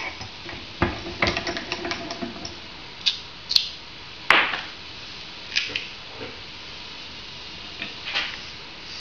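Hands handling parts at a stopped small lathe, taking the turned lure body and scrap off the spindle: scattered clicks and knocks of hard pieces against metal, the loudest a little after four seconds in.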